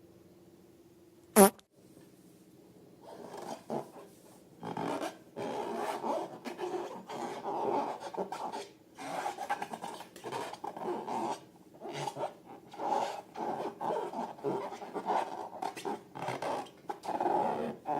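Slime and rubber balloons being squeezed and handled: a sharp snap about a second and a half in, then about fifteen seconds of irregular wet squelching and rubbing.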